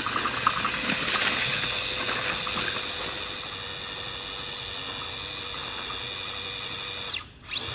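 Micro Komodo brushless motor of a 1/24-scale SCX24 pull truck on a 3S LiPo, whining at a steady high pitch under load as it drags a weighted pulling sled over dirt. The whine cuts off about seven seconds in, then rises again briefly near the end.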